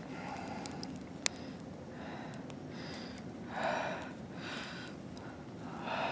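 Small campfire of feather sticks and wet kindling crackling, with a few sharp pops, the loudest about a second in. Several short breaths and sniffs close to the microphone.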